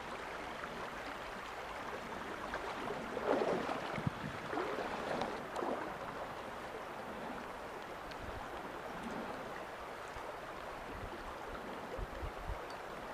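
A small, shallow stream flowing, a steady rush of running water. A few short, louder noises stand out between about three and six seconds in.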